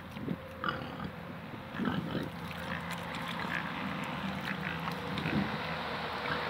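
Pigs grunting a few times close by, over steady wind noise on the microphone.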